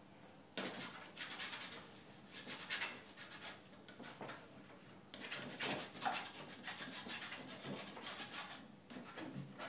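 Palette knife scraping and spreading thick paint across a stretched canvas in a series of short, faint strokes.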